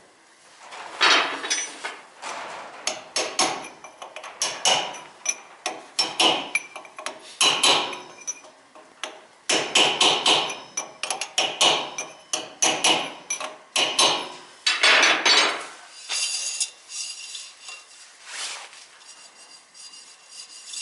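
Hand tools knocking and clanking on metal: a long run of irregular, sharp strikes, some ringing briefly.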